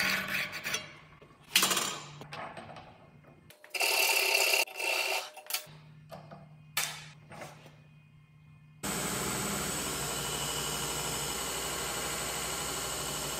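Short scrapes and metal clinks of steel tube being worked by hand, then from about nine seconds in a 2x72 belt grinder grinding the end of a steel square tube: a loud, steady grinding noise over the motor's hum.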